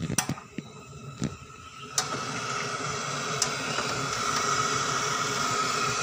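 A few light knocks, then a sharp click about two seconds in, after which a gas welding torch flame hisses steadily, heating an aluminium refrigerator evaporator for aluminium-rod welding.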